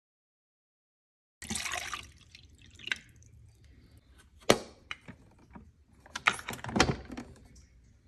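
Water splashing into a Keurig K-Mini coffee maker's small reservoir, starting about a second and a half in. Then several sharp plastic clicks and knocks as the machine's lid and controls are handled; the loudest comes about halfway through.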